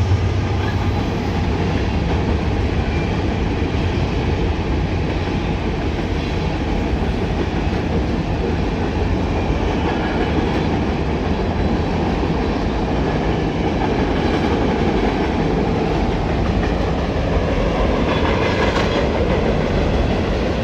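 Freight cars of a Norfolk Southern mixed freight train rolling past, a steady loud rumble of steel wheels on the rails. A low engine drone from the locomotive that has just passed fades within the first second.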